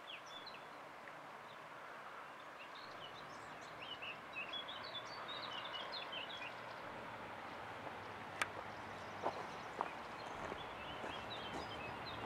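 Small birds chirping and twittering over a faint steady rush from a distant freight train on the line, with a few sharp clicks in the second half.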